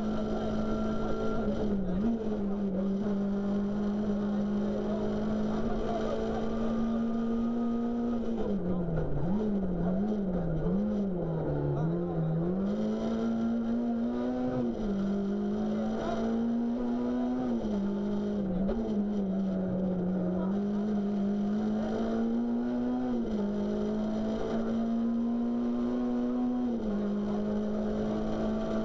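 Renault Clio RS rally car's four-cylinder engine, heard from inside the cabin, driven hard on a rally stage. The revs stay high with short dips at gear changes, and about nine to twelve seconds in they fall and rise several times in quick succession.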